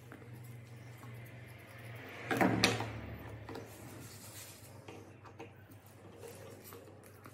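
Grooming scissors being handled at a rubber-matted grooming table: a brief clatter about two and a half seconds in, then scattered quiet clicks, over a low steady hum.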